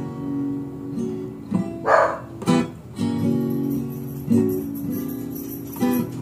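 Acoustic guitar strummed in slow, ringing chords as the instrumental close of a song, with a short noisy burst about two seconds in.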